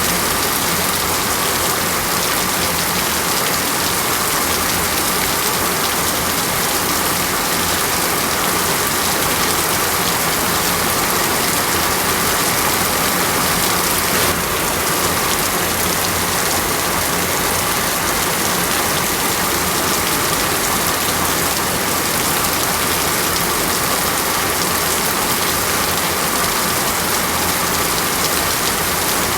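Steady heavy rain falling on foliage in a tropical rainforest, a dense even hiss of drops with no pauses.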